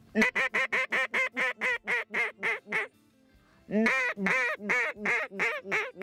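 Mallard duck call blown by a hunter: a run of about a dozen loud quacks that slow toward the end. After a short pause a second run opens with a longer drawn-out quack and goes on with several shorter ones.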